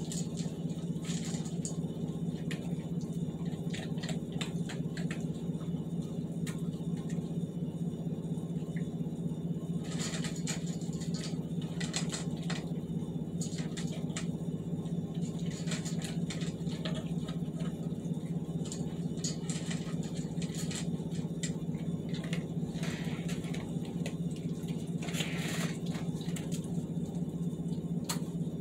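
A dog eating dry food: irregular crunches and small clicks, coming in clusters, over a steady low hum.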